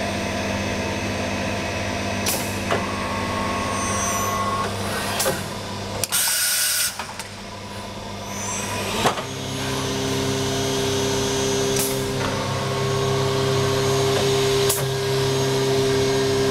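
Toyosk TSDT30 CNC drilling machine humming steadily with its motors running. About six seconds in there is a short burst of air hiss lasting about a second. Near nine seconds there is a click, after which a louder steady hum comes in and holds.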